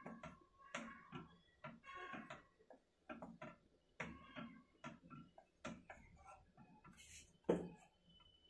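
Wooden spatula stirring egg curry in a pan: light, irregular clicks and knocks of the wood against the pan, with one louder knock about seven and a half seconds in.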